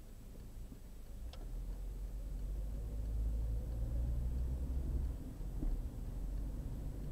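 Car on the move: a low road and engine rumble that swells about a second in and stays louder, with one sharp click near the start.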